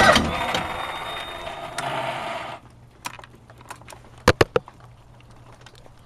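Honda car's starter cranking an engine that does not catch: the cranking fades and cuts off about two and a half seconds in. Several sharp clicks follow, a cluster of them a little past the middle.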